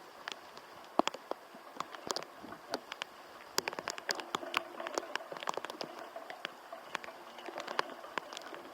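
Typhoon rain: irregular sharp ticks of raindrops striking close to the microphone, growing denser after about three and a half seconds, over a steady wash of wind and rain.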